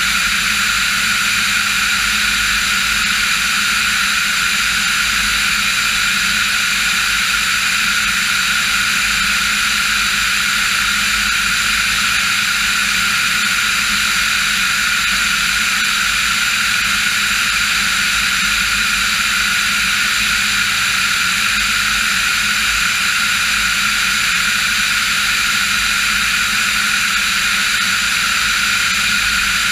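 Diamond DA40 NG light aircraft's Austro turbodiesel engine and propeller running at steady power in flight, a loud, unchanging drone with a strong hiss.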